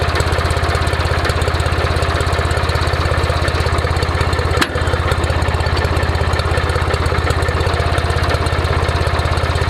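Tractor engine idling steadily with an even rapid pulse. A single sharp knock cuts through about four and a half seconds in.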